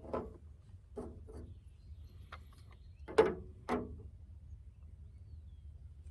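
Small clicks and knocks of waterer valve parts being handled and fitted together during reassembly: a few short taps, the loudest pair about three seconds in.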